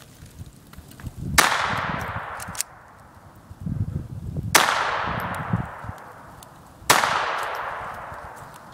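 Three single shots from a Jennings J-22 .22 LR semi-automatic pistol, a few seconds apart. Each is a sharp crack followed by a long echo that fades over a second or more.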